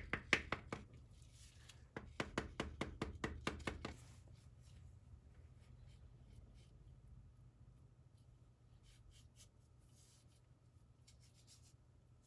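Rapid, even knocks, about five a second, of an oak stick being struck to drive a differential side seal into its bore. They come in two runs, one stopping under a second in and one from about two to four seconds in, then stop.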